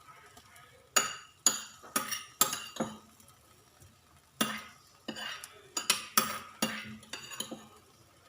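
Metal spoon knocking and clinking against cookware, a dozen or so sharp ringing taps in two quick runs with a short pause between, as vegetables are scooped into the frying pan.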